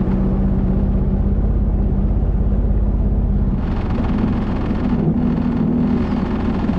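Jet ski engine running steadily at speed, with wind and water rushing past. About halfway through, the deep low drone weakens and the rushing hiss grows brighter.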